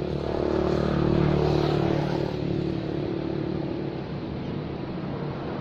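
A motor vehicle's engine running as it passes, growing louder in the first couple of seconds and then easing off.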